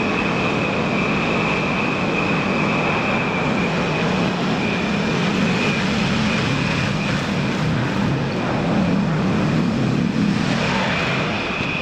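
Husqvarna TS348D lawn tractor engine running steadily under way, with a steady high-pitched whine over it.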